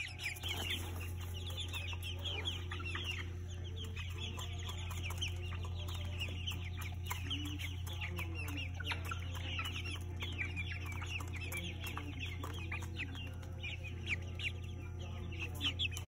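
A flock of young pullets peeping and chirping continuously, many birds at once, with short rapid chirps overlapping over a steady low hum.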